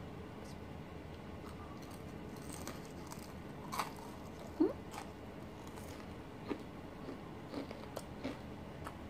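Crisp batter-fried banana fritter (pisang goreng) being bitten and chewed: scattered short crunches of the crunchy fried batter.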